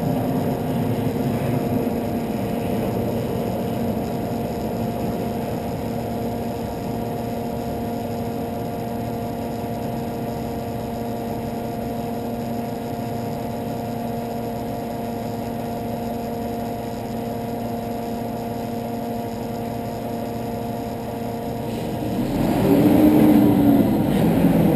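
Van's engine idling steadily. About three seconds before the end it gets louder and rougher.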